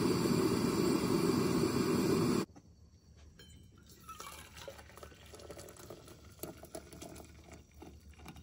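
A gas camp-stove burner hissing steadily under a stovetop coffee percolator, cut off abruptly about two and a half seconds in. Then a quiet trickle of coffee being poured from the percolator into a metal mug.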